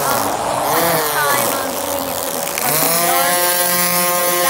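String trimmer (weed eater) running while cutting grass, its motor pitch dipping and rising again in the first half as it bogs and speeds back up, then holding high and steady for the last second and a half.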